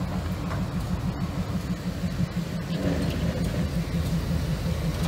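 Diesel locomotive engine running with a steady low throb as it slowly pushes a caboose along the track.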